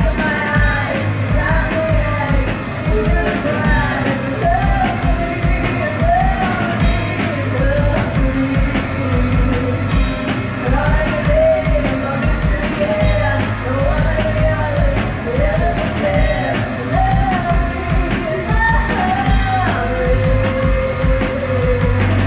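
Live rock band playing: female lead vocals sing over distorted electric guitars, bass and a drum kit keeping a steady beat.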